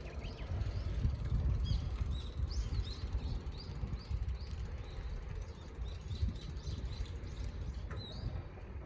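Small birds chirping over and over, short high calls coming a few times a second, over a low rumble of wind on the microphone.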